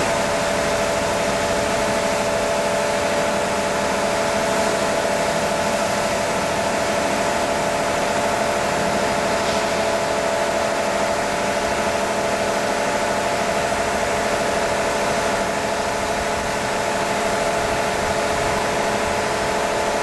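Automatic car wash machine running: a steady mechanical hum made of several constant tones over an even hiss, with no change in speed or pitch.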